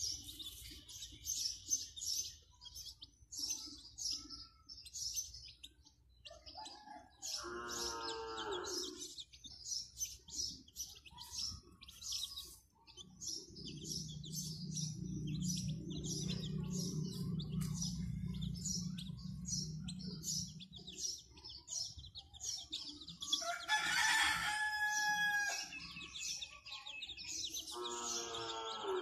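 Chicks peeping continuously in quick, high chirps, with adult chicken calls over them: a longer, lower call about eight seconds in, a louder one around twenty-four seconds in, and another near the end. A low steady hum runs through the middle.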